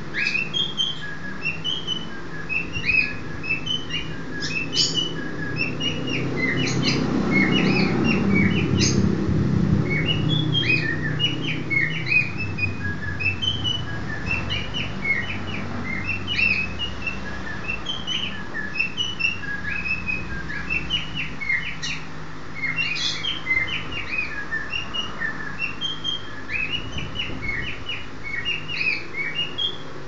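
Cockatiels chirping: many short, quick chirps, one after another and overlapping, throughout. A low rumble swells in the background for a few seconds near the middle.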